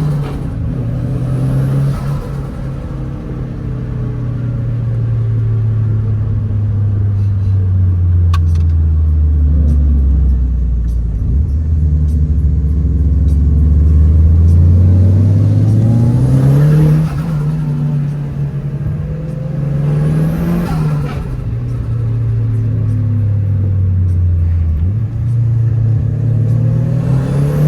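Turbocharged Nissan KA24 four-cylinder engine of an S13 being driven hard. The revs sink slowly for about ten seconds, then climb again with several lifts off the throttle and a sudden jump in revs near the end, like a downshift. A faint high turbo whistle rises and falls as the revs build.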